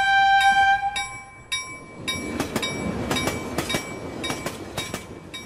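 A railroad crossing bell rings about twice a second while a train horn holds a chord that stops about a second in. Then a train rumbles past, with the bell still ringing.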